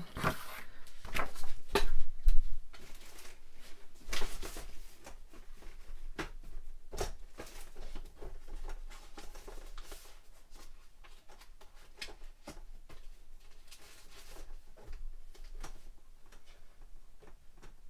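Sheets of paper and cardstock being handled and shuffled: irregular rustling with light clicks and knocks, busiest in the first few seconds and quieter after.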